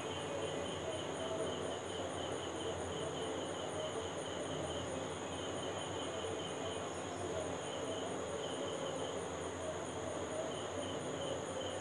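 Banana-batter fritters deep-frying in a karahi of hot oil: a steady sizzle and bubbling. Behind it runs a rhythmic high chirping of insects, about three pulses a second.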